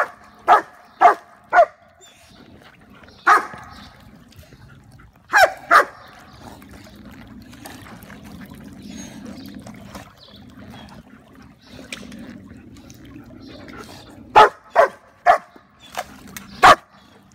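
A dog barking in short, sharp barks: a run of four near the start, three more a few seconds in, and a quick run of five near the end. Soft water sloshing fills the quieter stretch between.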